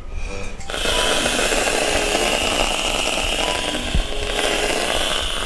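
Aerosol can of whipped cream hissing as it sprays cream onto a plate, starting just under a second in and holding steady.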